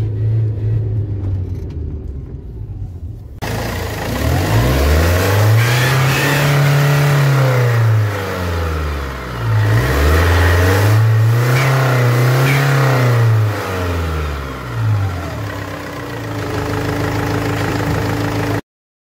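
Car engine idling, then revved up and let fall back twice, with a harsh, loud noise from exhaust gas leaking through the exhaust manifold gasket, which shows above about 2,500 rpm. It settles back to idle and cuts off suddenly near the end.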